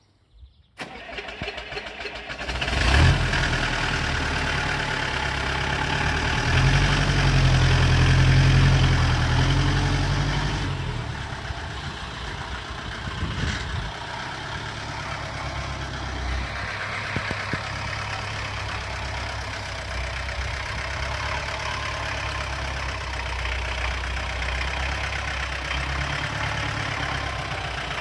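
Multicar M25's diesel engine starting about a second in, catching near the three-second mark, then run harder as the truck pulls away carrying about 1.5 tonnes of gravel, loudest between about six and ten seconds in, before settling to a steadier, lower running.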